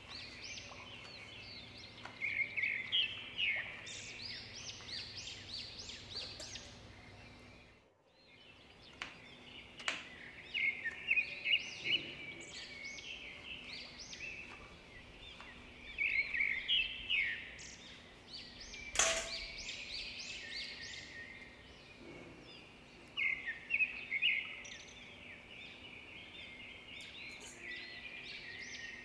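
Small birds chirping in repeated bursts of rapid short calls, with a few sharp taps of a knife cutting down onto a wooden chopping board.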